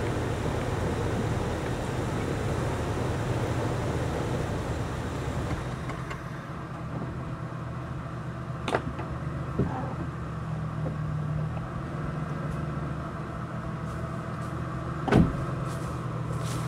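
Jeep engine running as the vehicle rolls up and stops, then idling steadily. A few short knocks sound over it, the loudest near the end.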